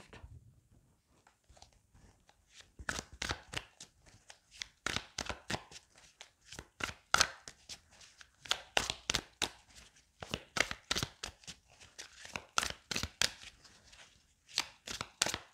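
A deck of fortune-telling cards shuffled by hand: a quick, irregular run of short card slaps and flicks, about three or four a second, starting about two seconds in.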